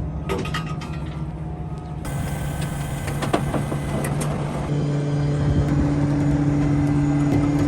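Heavy vehicle engine running steadily, growing louder, with a stronger, higher hum setting in about five seconds in.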